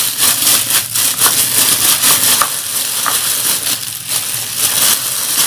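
Thin plastic glove rustling and crinkling as a gloved hand kneads and squeezes mashed cassava with spice paste in a bowl, with many small irregular clicks.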